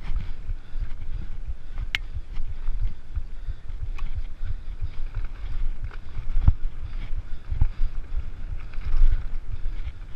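Mountain bike riding fast down a dirt singletrack: wind buffeting the body-mounted camera microphone over the rumble of the tyres on the trail, with a few sharp knocks and rattles from the bike.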